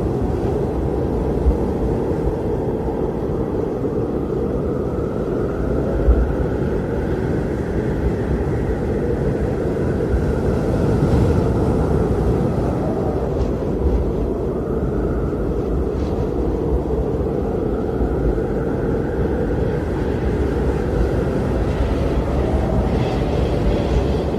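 Snowstorm wind blowing hard and steadily, a loud low rumble that swells and eases slowly.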